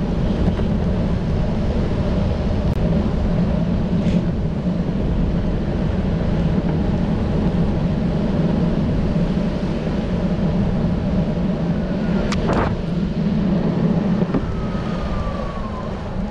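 Electric longboard rolling over asphalt: a steady, even rumble of the wheels on the pavement, with a brief sharp knock about twelve seconds in.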